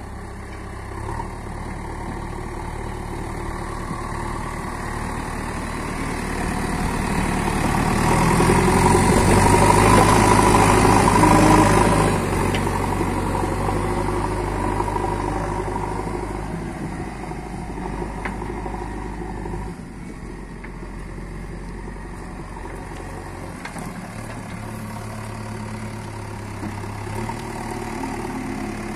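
JCB 3DX backhoe loader's diesel engine running. It builds up over several seconds to its loudest, drops off suddenly a little before halfway, and then runs steadily at a lower level.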